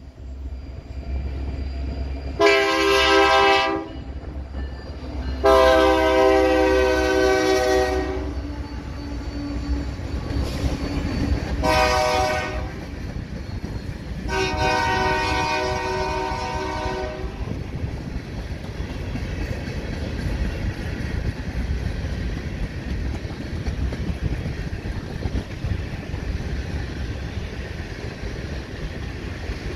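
Diesel freight locomotive's multi-chime air horn sounding four blasts, long, long, short, long, the grade-crossing signal, over the low rumble of the approaching engines. After the last blast the locomotives and a long string of covered hopper cars roll past with a steady rumble and wheel clatter.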